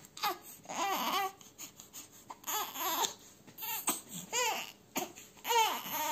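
Newborn baby fussing in a pram: a series of short, rising-and-falling whimpering cries, about one a second.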